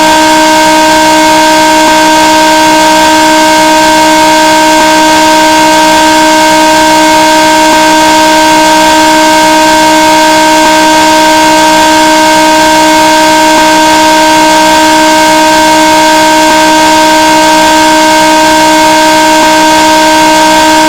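Harsh, heavily distorted 'raging' sound effect: one loud, horn-like buzzing tone held at a single pitch over a rough hiss, with no change in pitch or loudness.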